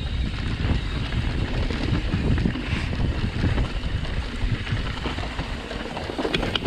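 Wind buffeting the microphone over the rumble and rattle of a mountain bike rolling over a dry dirt trail. There are a couple of short, sharp clicks near the end.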